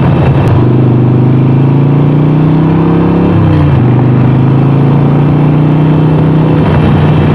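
Harley-Davidson Sportster 48's air-cooled V-twin under way, its pitch climbing steadily as it accelerates, then dropping at a gear change about three and a half seconds in and running steady after that.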